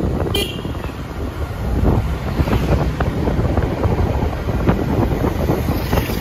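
Wind buffeting the microphone, a loud uneven rumble throughout, with a short high-pitched beep about half a second in.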